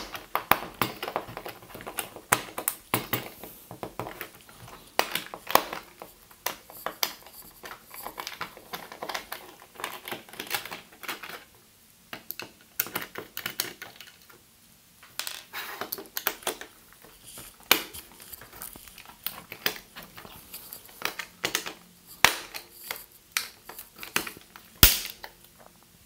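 An iFixit precision screwdriver bit clicking and scraping in the non-standard screw heads of a plastic remote-control plug socket as it is twisted, in irregular ticks with a lull about halfway through. A single sharp crack near the end as the driver bit snaps.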